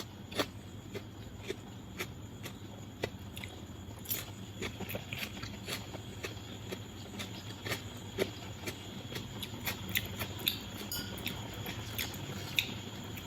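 A person chewing food with the mouth close to the microphone: scattered soft clicks and smacks, one to three a second, over a steady low hum.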